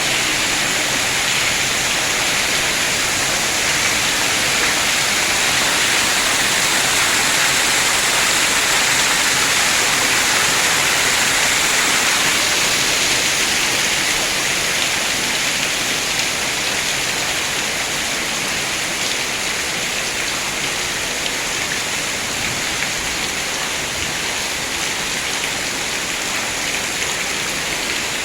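Heavy rain falling as a steady, dense hiss, a little louder in the first half.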